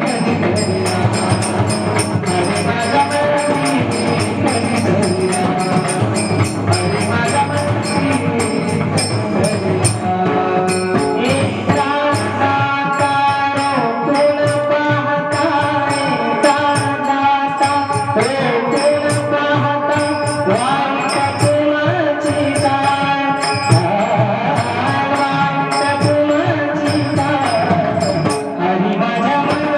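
Marathi bhajan music: small hand cymbals striking a steady, fast beat over drumming, with a melody line that rises and falls, growing clearer about halfway through.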